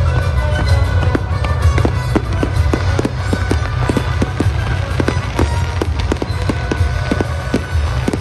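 Fireworks going off in a rapid, irregular run of sharp bangs and crackles, about three a second, over loud show music with a heavy bass.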